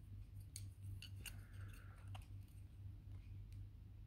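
Faint clicks and light rustles of wooden chopsticks picking through onion-fried pork in a crumpled aluminium foil packet, over a low steady hum.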